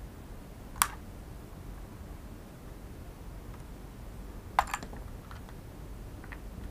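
A few sharp clicks and taps of plastic as a DJI Mavic Air remote controller's casing is handled and worked with a small screwdriver: one click just under a second in, a quick double click a little past halfway, then a few fainter ticks.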